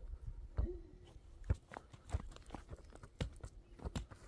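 Irregular, fairly faint crunches and knocks, about a dozen short ones scattered through.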